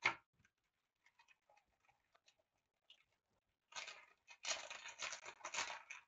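Close-up sounds of hands working small model-building materials: a sharp click, a few faint taps, then about two seconds of scratchy rustling and scraping near the end.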